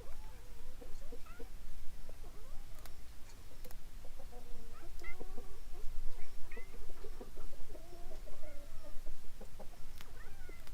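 Cats meowing and chickens clucking: a run of short, wavering calls, busiest in the middle.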